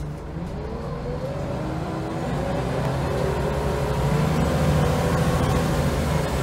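Scania L94UB single-deck bus heard from inside the saloon, its diesel engine and ZF automatic gearbox pulling away and accelerating. The engine note rises in pitch over the first few seconds and grows steadily louder.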